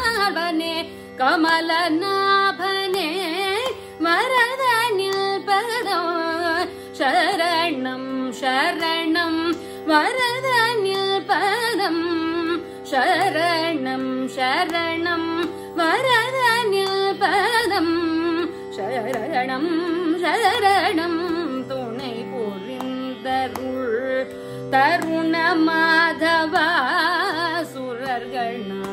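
A woman singing Carnatic classical music in raga Shuddha Hindolam, her voice sliding and oscillating in ornamented phrases with brief breaks, over a steady drone.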